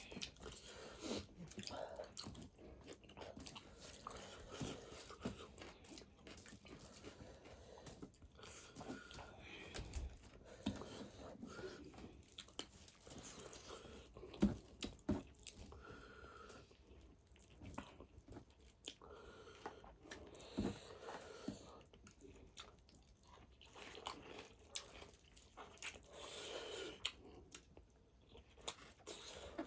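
Pork feet being chewed and bitten up close: irregular wet clicks and smacks of mouth and teeth on meat and skin, with a few louder bites about halfway through.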